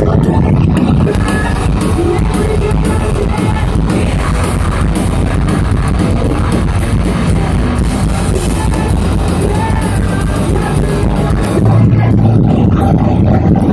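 A live rock band plays loud, with drums and guitar and a singer. The cymbals drop out near the end while the bass swells.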